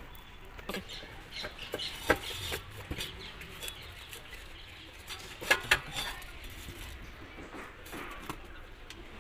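Scattered clicks and knocks from hands handling a small electric motor and its wire on a workbench; two sharp clicks close together about five and a half seconds in are the loudest.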